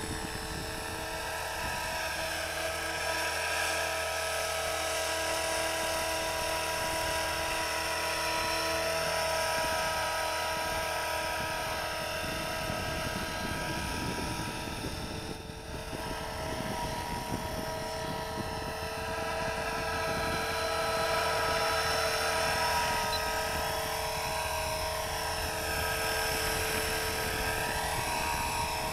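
Radio-controlled model helicopter in flight: a steady high whine from its motor and rotor. The pitch wavers for a few seconds near the end.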